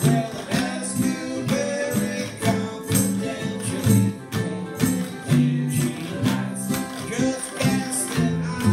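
Live acoustic band music: a strummed acoustic guitar with a washboard scraped and tapped in a steady, even beat.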